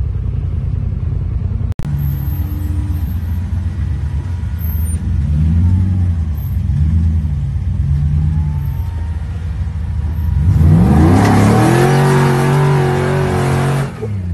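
Off-road 4x4 engine revving in three short rises and falls as it works up a steep rock ledge. It then revs hard and holds at high rpm with a loud hiss of spinning tyres throwing grit and dust, and drops away sharply near the end.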